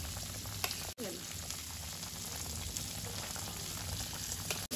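Fish curry sizzling steadily in a kadai, with faint scattered crackles; the sound drops out for an instant about a second in.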